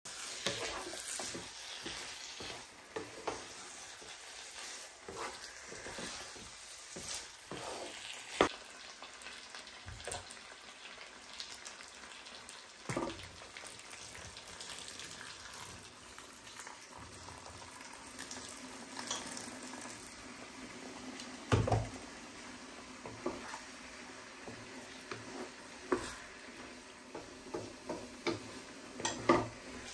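Rice, chickpeas and chicken sizzling in a nonstick wok while a wooden spatula stirs them, scraping and now and then knocking sharply against the pan. Partway through, water is poured in.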